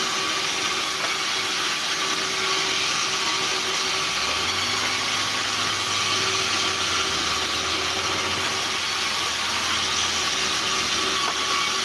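Vertical band saw running steadily, the blade sawing through a log on the carriage. A deeper low hum joins from about four seconds in and fades near the end as the cut is made.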